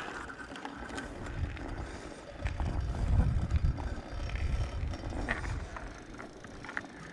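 Bicycle rolling over pavement: an uneven low rumble of tyres and air moving past the microphone, swelling about halfway through, with a few faint ticks.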